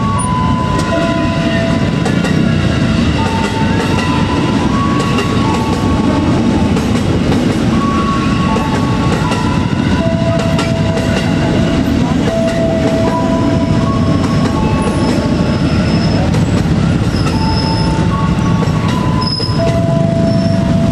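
A commuter train running past close by: a loud, steady rumble with wheel clatter. A line of high held notes that step up and down in pitch sounds over it.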